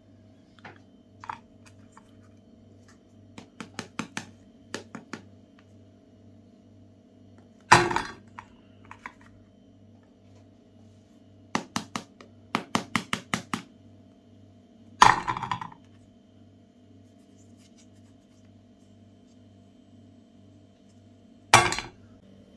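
Ice cream bars on wooden sticks being handled and set down on a glass plate: scattered light clicks and clinks, with quick runs of taps, and three louder knocks on the glass, about 8, 15 and 21 seconds in, over a faint steady hum.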